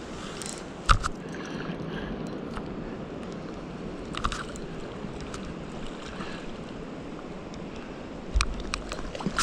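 Creek water flowing steadily. There is a sharp knock about a second in and a couple more near the end.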